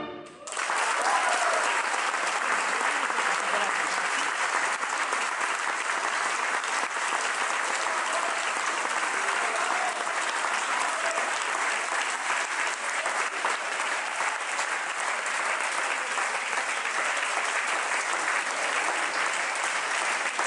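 A large audience applauding steadily, with some cheering shouts mixed in. The clapping swells up as the tango music stops at the very start.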